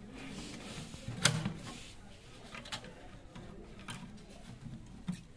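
Wires and spade connectors being handled at a blower heater's switch terminals: a few sharp clicks, the loudest about a second in, over faint rustling.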